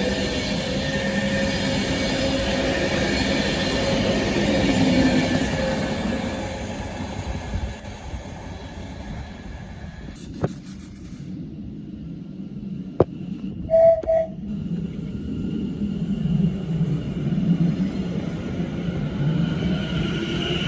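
Electric trains on the line: a train running past loudly, fading away about seven seconds in. Then two sharp clicks and a short double beep a little after halfway. Near the end the rumble of another train builds as it approaches.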